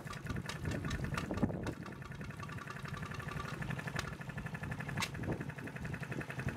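Water from a garden hose nozzle splashing over metal spokes in a plastic tray. Old stationary engines run steadily in the background.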